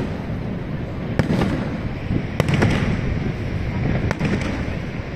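Aerial fireworks bursting: several sharp bangs, some in quick pairs, about a second in, around two and a half seconds and around four seconds, over a steady low rumble.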